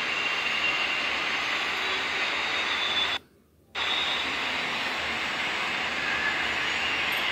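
Steady hiss, even and fairly loud, with no speech. A little over three seconds in it drops out to near silence for about half a second, then resumes.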